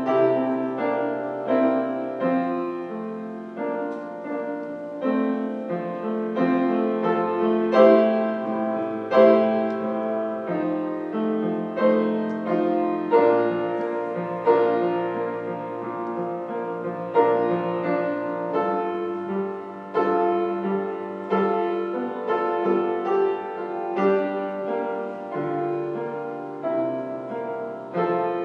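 Solo piano playing a slow piece of held chords, a new note or chord sounding about once a second.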